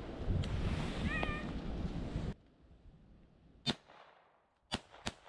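Wind buffeting the microphone, which cuts off suddenly about two seconds in. A brief, high, distant beagle yelp from a hound on the rabbit's trail comes about a second in. Near the end come three sharp twig snaps.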